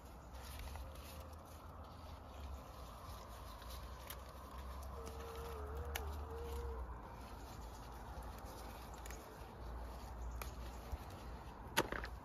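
Bean vines rustling as pods are picked by hand, with a few sharp snaps, the loudest near the end, over a low rumble. A brief wavering tone sounds about halfway through.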